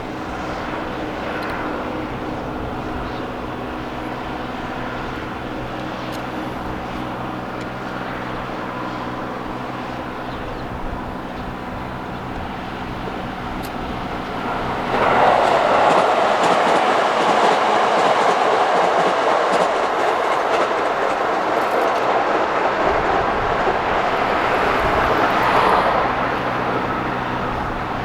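Freight train hauled by an EF66 electric locomotive running past on the rails: a steady hum with several low tones for about the first half, then a sudden, loud rolling rush of wheels on rail about halfway in that eases off near the end.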